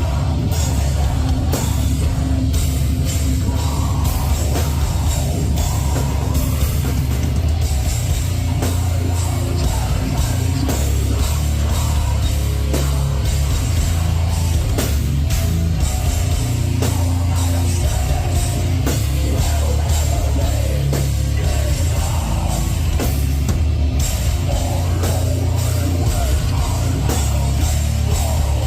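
Heavy metal band playing live: heavily distorted low-tuned guitars and bass over rapid pounding drums, loud and dense, as recorded from the crowd.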